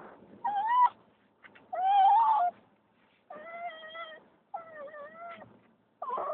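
A dog whining in a series of five high crying calls, each about half a second to a second long, the second the loudest. This is the excited crying this dog makes as the car slows down on arrival.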